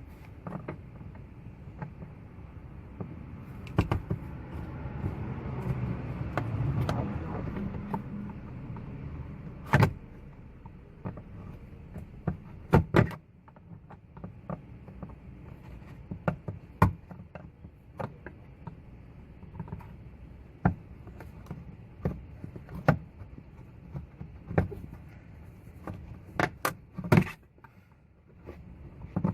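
A flathead screwdriver prying white plastic push clips out of a car's underbody guard: scattered sharp clicks and knocks as the clips pop and the tool hits the plastic, with a longer stretch of low scraping and rustling about four to nine seconds in.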